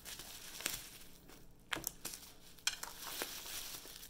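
Plastic bubble wrap crinkling and rustling as it is pulled off a bundle of wooden frame strips, with a few short sharp clicks.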